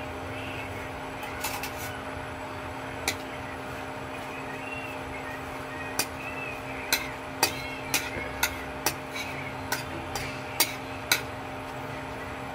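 A spatula knocking and scraping in a metal kadai as dried red chillies are turned in a little hot oil: a few sharp knocks early, then a run of about ten in the second half. A steady hum runs underneath.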